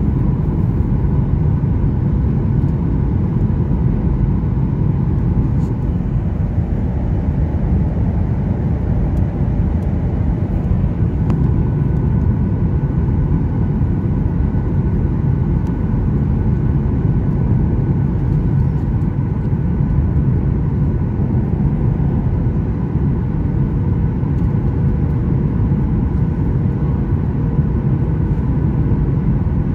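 Steady cabin noise of a Boeing 737-800 airliner in flight on descent: a deep, even rumble of engines and airflow with a faint steady hum above it.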